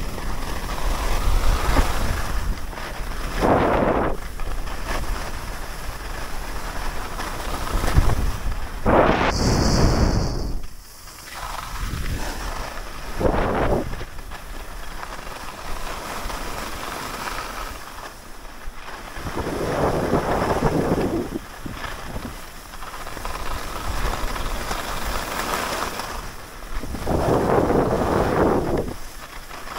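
Wind rushing over the camera microphone during a downhill ski run, mixed with skis hissing and scraping over packed, groomed snow. The noise swells and fades every few seconds, loudest about eight to ten seconds in and again near the end.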